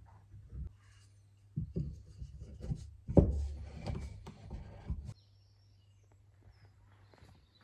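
Wood-on-wood knocking and rubbing as a turned ash stool leg is pushed and twisted into a glued socket in the seat, with one louder knock about three seconds in. The sound cuts off abruptly about five seconds in.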